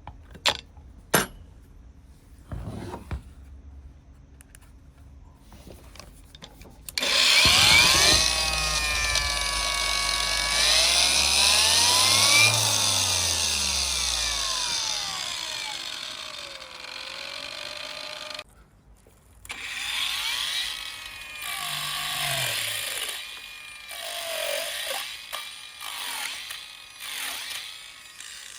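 A few sharp clicks, then a power tool starts about seven seconds in and runs loud, its motor pitch sagging and rising again. It stops for about a second, then runs in shorter spells with changing pitch.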